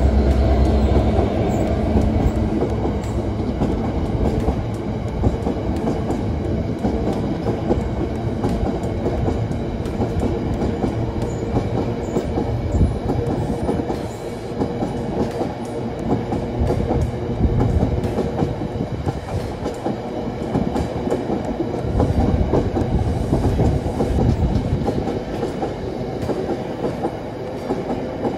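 Freightliner Class 66 diesel locomotive, with its EMD two-stroke V12, passing with its engine running, loudest in the first couple of seconds. Then a long rake of bogie box wagons rolls by with a steady rumble and clickety-clack of wheels over the rail joints.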